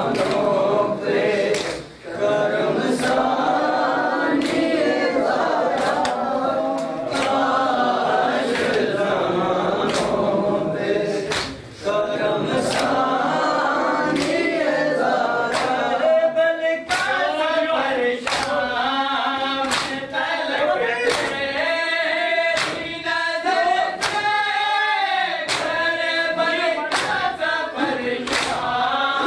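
Men chanting a noha, a Muharram lament, in chorus, while open hands slap bare chests in matam in a steady beat of about one slap a second.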